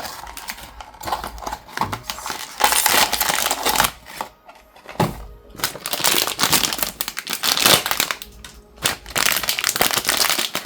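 Crinkling and crushing of blind-box packaging handled by hands, in stretches of dense crackle and small clicks broken by two short pauses.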